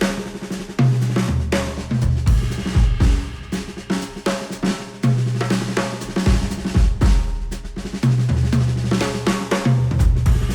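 Instrumental music with a full drum kit (kick, snare, hi-hat) and held bass notes, played back through a headphone and picked up by microphones at the ear cups.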